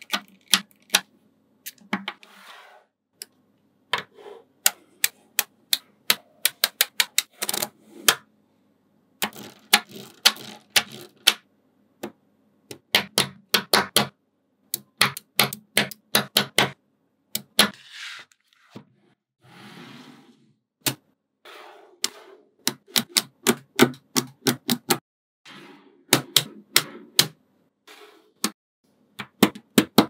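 Small magnetic balls clicking sharply as they snap onto one another and onto a built-up block of balls. The clicks come in quick runs with short pauses between them.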